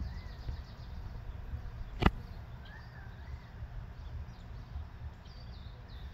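Outdoor ambience with a steady low rumble and faint bird calls, short rising-and-falling chirps heard several times. One sharp click about two seconds in.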